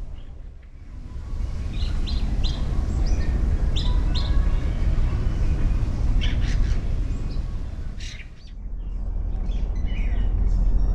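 Small birds chirping, many short calls, over a steady low rumble.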